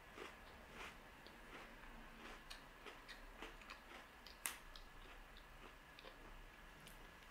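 Faint chewing of a crunchy white-chocolate-coated protein cookie: soft, irregular crunching clicks, with one sharper click about four and a half seconds in.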